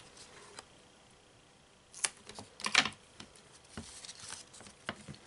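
Double-sided tape being pulled off its roll and pressed onto a paper panel on a cutting mat: a few sharp crackling clicks about two seconds in, then lighter ticks and rustles.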